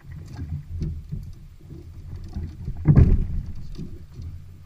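Plastic kayak being handled and launched into the water: low rumbling and irregular knocks from the hull, with one heavy thump about three seconds in.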